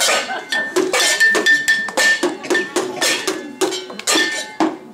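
Steel pot lids and a tin lid struck as improvised percussion, clanging in a quick, roughly even beat of about four strikes a second, with a ringing metallic tone between the hits.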